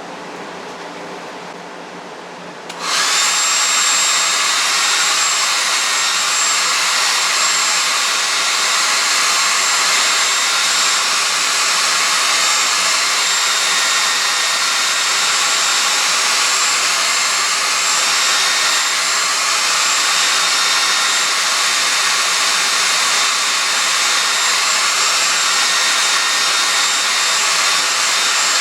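Handheld hair dryer blowing hot air steadily onto poster tape to soften the adhesive. About three seconds in it jumps to a much louder, higher setting and then runs evenly, with a faint whine in it.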